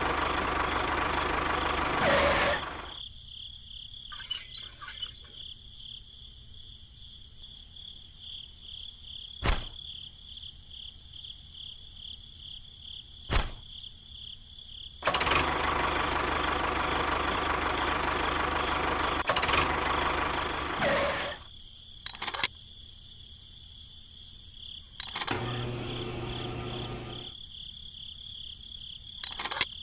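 Small electric motor of a DIY model tractor running with a steady high whine, twice swelling into a louder, rougher stretch, with a few sharp clicks in between.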